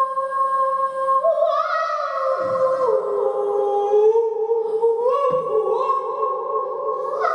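A woman singing long, wordless held notes into a microphone. She steps and slides between pitches every second or two over a second held line that moves separately.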